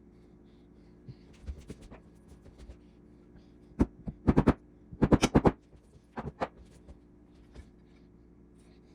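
A series of sharp knocks and clicks in uneven clusters, loudest in two quick runs about four and five seconds in, over a faint steady hum.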